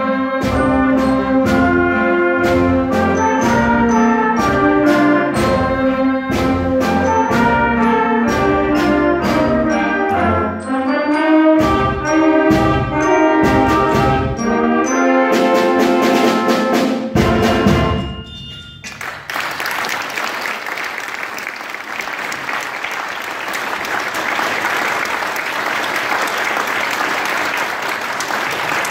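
School wind band of brass and woodwinds playing a rhythmic piece with regular percussion hits, ending on a run of short chords and a final held chord that cuts off about 18 seconds in. The audience then applauds.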